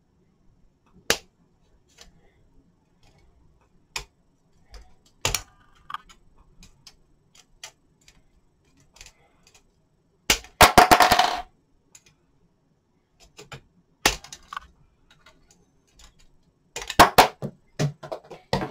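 Scissors snipping plastic kit parts off a sprue: sharp single snaps a few seconds apart, a second-long rapid clatter of plastic about ten seconds in, and a quick run of snaps near the end.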